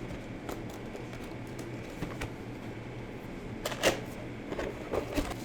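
Cardboard keyboard box being opened and its contents handled: scattered light knocks and scrapes, the loudest a sharp knock about four seconds in.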